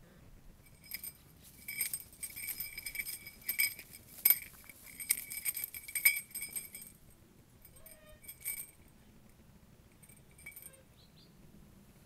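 A small metal bell jingling in rapid shaken clinks for about six seconds, then in two short bursts, while a young eagle owl flaps its wings.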